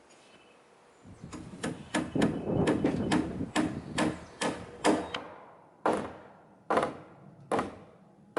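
Hammer driving nails into wood (cabin roof framing such as bird blocks): a quick run of blows about two a second starting about a second in, then a few slower single strikes near the end.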